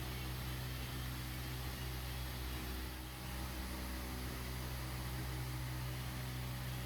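Shot blasting machine running steadily while stripping an old line stripe from the concrete floor: a constant low hum with hiss.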